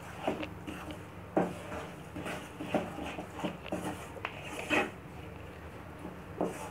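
Wooden spatula scraping and stirring a thick, clumping milk-powder mixture in a nonstick frying pan, in short irregular strokes.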